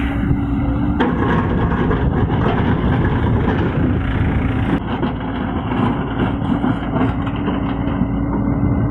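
A heavy diesel engine runs steadily with a constant low drone. The sound changes abruptly about a second in and again near five seconds.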